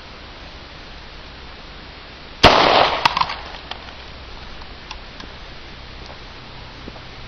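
A single shot from an H&K .40-calibre gun firing a full metal jacket round into a hard drive, about two and a half seconds in, with a brief echo and a few small ticks after it.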